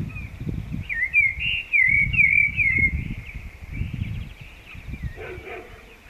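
Common blackbird singing, a run of fluty, warbled notes loudest about a second in, with quieter song after. A low rumble comes and goes underneath.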